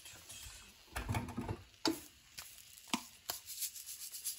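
Light knocks and clicks from salt and pepper containers being handled and shaken, the loudest a dull thump about a second in, with a quick run of small clicks near the end.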